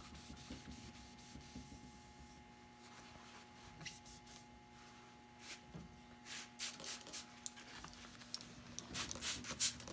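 Paper towel rubbing polish over the painted surface of a wooden half-hull model, faint at first, then a run of short rubbing strokes that grow louder toward the end.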